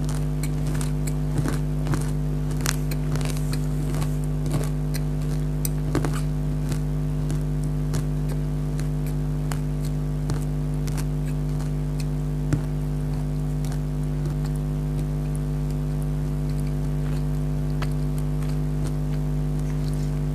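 Close-up crunching and chewing of crunchy nimko, a fried savoury snack mix: many short crackling clicks, frequent in the first half and sparser later. Under it runs a steady low hum.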